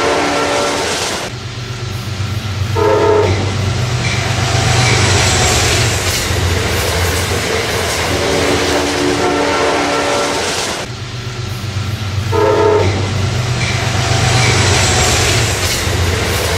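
Passing train with the low, steady rumble of its engine and wheels, and a multi-note train horn. A long horn blast ends about a second in and a short blast follows near three seconds; the same sequence comes round again about eight seconds in.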